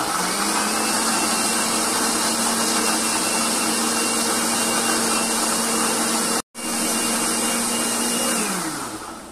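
Countertop electric blender running at full speed, blending canned corn kernels with milk: a steady motor whine that cuts out for an instant about six and a half seconds in, then winds down with falling pitch near the end as it is switched off.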